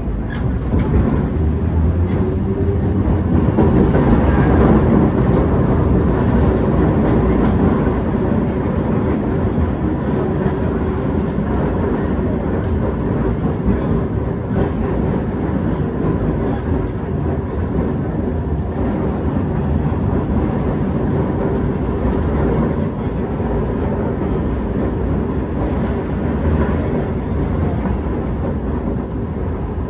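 A New Orleans St. Charles Line Perley Thomas streetcar running along its track, heard from aboard: a steady rumble of wheels on rail, growing louder over the first few seconds and then holding.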